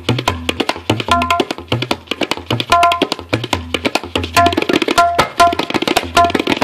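Tabla played fast in a keharwa rhythm in the galloping 'ghoda' style. Many quick strokes a second ring on the dayan, under repeated deep, ringing bass strokes on the bayan.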